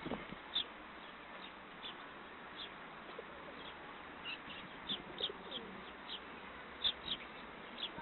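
Sparrows chirping: a dozen or so short, high chirps scattered through, from a flock feeding alongside feral pigeons, with a pigeon's low coo about five seconds in.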